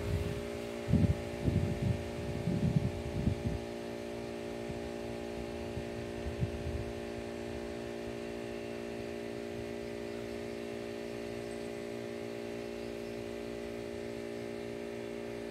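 A steady hum made of several fixed pitches, with a few low thumps in the first few seconds and another about six seconds in.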